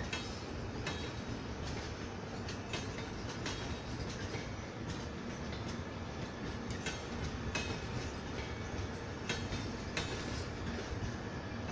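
Express train's LHB passenger coaches rolling past at close range, a steady rumble with irregular sharp clicks as the wheels run over the track.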